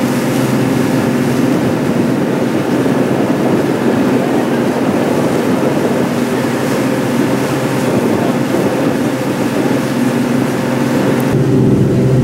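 A fishing boat's engine running at a steady drone under way, with wind and water rushing past. Near the end the sound turns lower and heavier.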